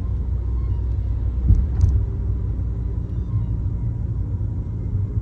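Peugeot 3008 being driven, heard from inside the cabin: a steady low rumble of engine and road noise, with a brief thump about a second and a half in.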